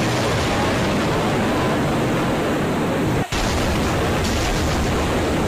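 Torrential rain driven by strong wind: a dense, steady rush with gusts buffeting the microphone. It cuts out for an instant a little over three seconds in, then carries on.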